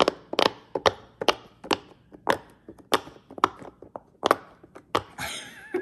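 Black silicone pop-it fidget toy, its bubbles pressed through one after another: a quick series of sharp pops, about three a second at an uneven pace.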